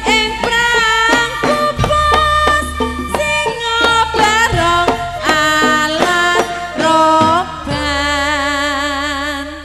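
Javanese jaranan dance music: a fast melody of short, bending notes over a steady low drone and a few low drum strokes, settling into one long held note with vibrato near the end.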